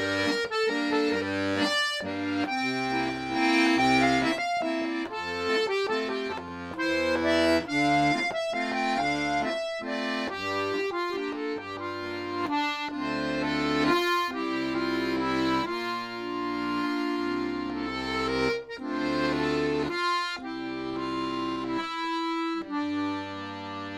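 Piano accordion playing a Cape Breton waltz: a melody over sustained chords and bass notes, settling on a long held chord near the end.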